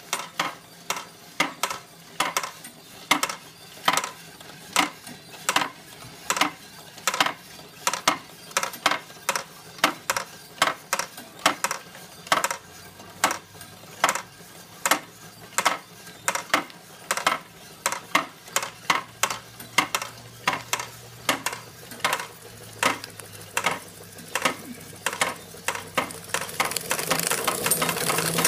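Belt-driven tin toy working models clicking and clinking in a steady rhythm, about two sharp metallic clicks a second, as the toy steam engine drives them. Near the end the toy steam engine itself grows louder, with a running hiss and rattle over the clicks.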